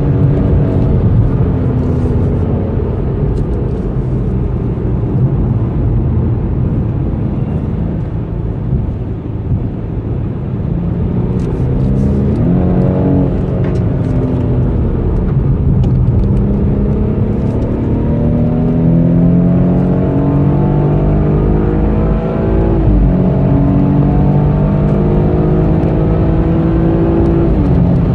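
Car engine heard from inside the cabin during hard track driving. It pulls through the gears with its pitch climbing under acceleration, then drops sharply at gear changes about 13 and 23 seconds in and again near the end.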